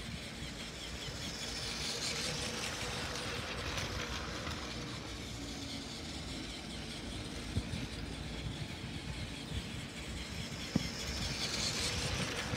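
Plarail battery-powered toy train running on plastic track: its small electric motor whirs and its wheels rattle, with a few light clicks. It gets louder as the train passes close, about two seconds in and again near the end.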